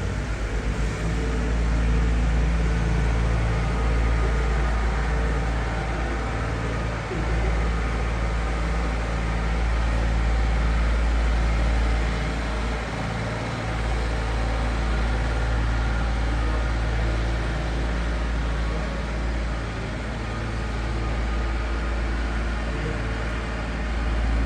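Steady low rumble with a constant hum and a wash of crowd chatter filling a large, echoing exhibition hall.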